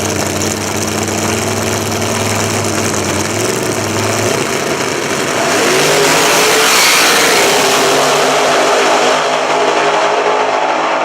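Drag-racing car engines running at the strip, with engine tones shifting and rising. The sound swells to its loudest a little past the middle and stays loud until near the end.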